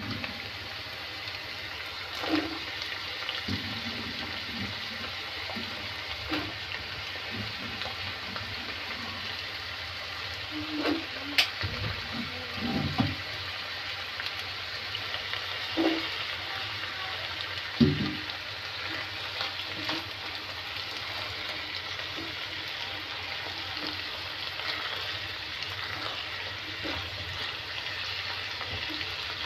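Pork and green beans sizzling as they stir-fry in a pan, with a steady hiss and a few knocks and scrapes of the spatula against the pan.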